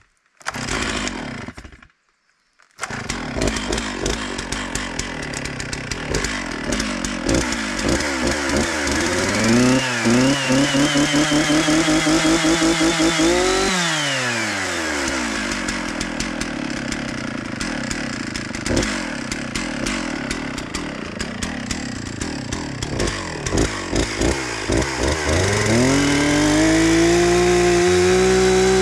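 Chainsaw running while felling a spruce tree. It starts about three seconds in, revs up to full throttle around ten seconds in and holds for a few seconds, drops back, then revs up again near the end and holds.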